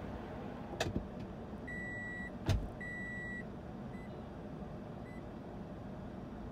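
Road traffic passing steadily. Two sharp clicks come about a second in, then two long, high electronic beeps with a loud knock between them, and later two faint short beeps.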